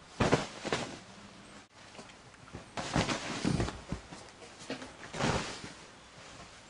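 A cat diving and burrowing into a soft duvet, the bedding rustling in three bursts: near the start, around three seconds in, and just past five seconds.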